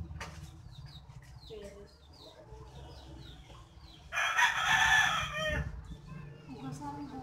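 A rooster crowing once, loud, about four seconds in and lasting about a second and a half. Faint short, high bird chirps come before it.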